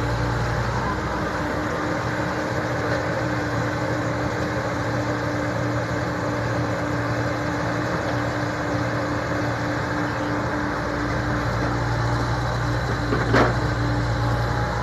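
Komatsu PC70 excavator's diesel engine running steadily under work, with one sharp knock near the end.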